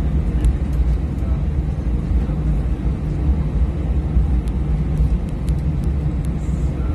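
Steady low rumble inside an Airbus A320 cabin as it taxis: its engines running and its wheels rolling along the taxiway, with a few faint clicks.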